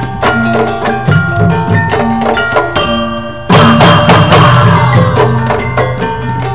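Sundanese rampak kendang: many kendang drums played together in a busy interlocking rhythm over gamelan metallophones striking a repeating melody. After a brief dip about three seconds in, the whole ensemble comes back in with a loud ringing accent.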